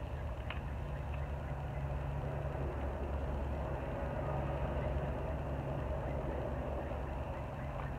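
A vehicle engine running with a steady low hum, a little louder in the middle and easing off near the end.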